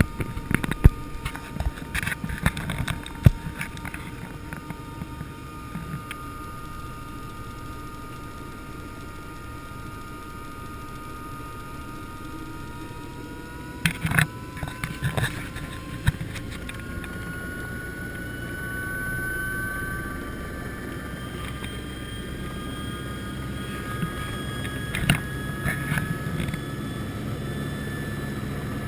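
Helicopter starting up, heard from inside the cockpit: a steady engine hum, joined about halfway through by a whine that rises slowly in pitch as the engine spools up and the rotor begins to turn. A few knocks and clicks sound near the start and around the middle.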